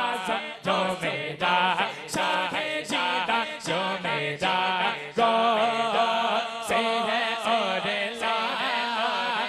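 Man singing an Urdu naat into a microphone in a chanted, ornamented melody whose pitch bends up and down continuously.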